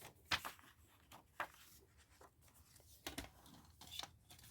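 A plastic CD jewel case and its paper booklet being handled: faint paper rustling with a few short clicks of the case.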